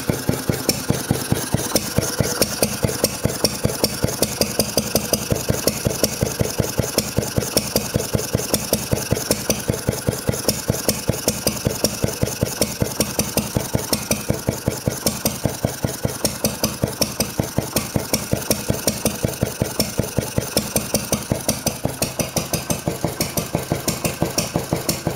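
Wolseley WD8 single-cylinder stationary engine running steadily, its firing strokes an even rapid beat. The engine is freshly rebuilt and is not firing quite right, which the owner puts down to the timing needing adjustment.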